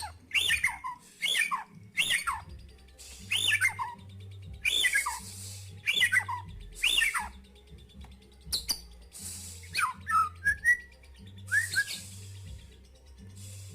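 White-rumped shama (murai batu) singing: a run of loud whistled phrases that slide down in pitch, roughly one a second, then a few shorter twisting notes towards the end.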